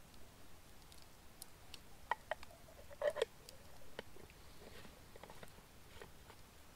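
Faint scattered clicks and crackles, with a short cluster of louder knocks and a brief pitched squeak about two to three seconds in.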